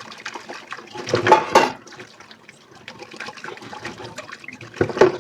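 Water splashing into a kitchen sink as dishes are rinsed under the tap, surging loudly about a second in and again near the end. Small clicks and clinks come between the surges.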